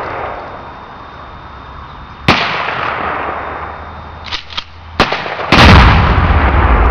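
Two rifle shots, each echoing. About five and a half seconds in, a 2-pound Tannerite charge detonates when hit, a huge blast whose deep rumble keeps going.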